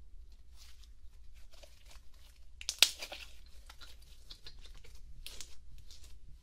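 Slime being stretched, pressed and squished by hand, giving a run of small crackling clicks and pops, with one loud sharp pop near the middle.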